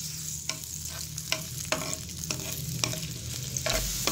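Sliced onions sizzling in hot cooking oil in a frying pan, a steady hiss, while a metal spoon stirs them, clicking and scraping against the pan about twice a second.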